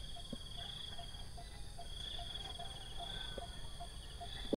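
Insects trilling in the grass in pulsed phrases of about a second each, with a short lower note repeating at an even pace about two or three times a second underneath.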